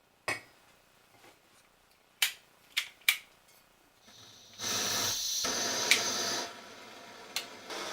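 Handheld gas blowtorch: four sharp clicks as it is worked, then a steady hiss of gas and flame for about two seconds, dropping to a softer hiss near the end.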